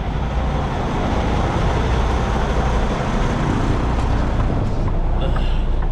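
Steady low drone of a semi-truck's diesel engine under a constant haze of road and wind noise.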